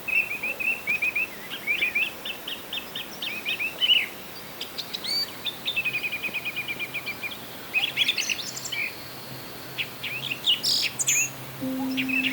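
Small songbirds chirping and twittering in a busy string of short high calls. A rapid trill of quick, evenly repeated notes comes about six seconds in.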